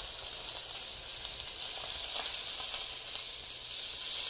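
A whole papio (young trevally) sizzling in hot oil in a frying pan on medium-high heat: a steady, even hiss.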